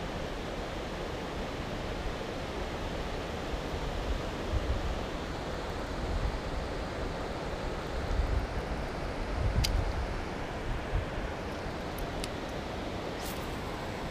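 Steady rush of water pouring through a dam spillway, with wind buffeting the microphone now and then. A few sharp clicks come in the second half.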